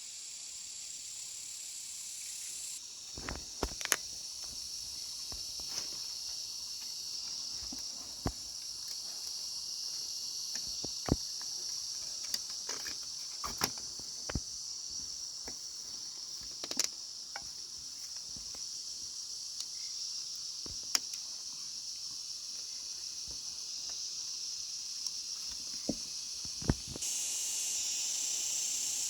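Insects droning steadily at a high pitch, with a dozen or so sharp clicks and knocks scattered irregularly through it.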